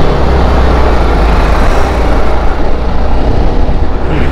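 A motorcycle riding through traffic: a loud, steady rush of wind and road noise over the engine's low drone.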